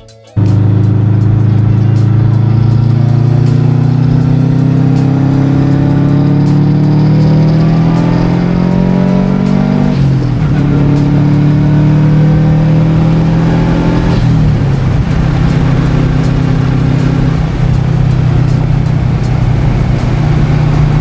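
Car engine accelerating under load: its pitch climbs steadily for about ten seconds, drops sharply at an upshift, climbs again, drops at a second shift around fourteen seconds in, then holds steady. Loud throughout, starting abruptly just after the beginning.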